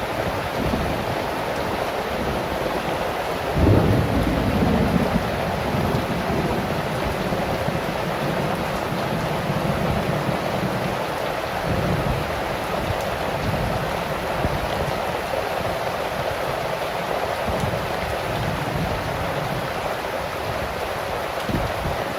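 Heavy rain falling steadily. A sudden low boom about three and a half seconds in rolls on into a deep rumble, and softer low rumbles come and go later.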